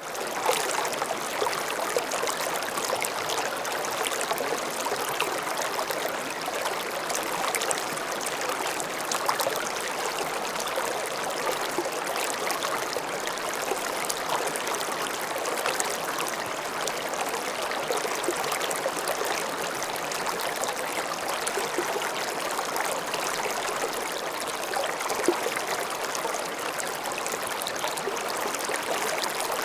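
Slow-moving stream flowing steadily over stones, a continuous burble of water with many small trickles and splashes.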